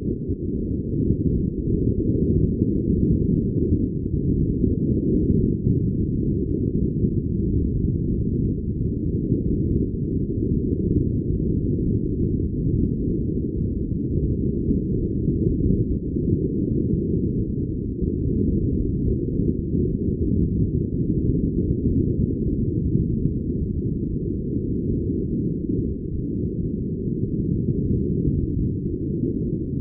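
Steady, muffled low rumble of wind buffeting the microphone, with no higher sounds coming through.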